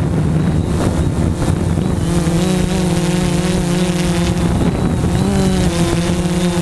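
Multirotor drone's electric motors and propellers humming steadily, heard from the camera on board, the pitch wavering up and down slightly as the motors adjust speed in flight.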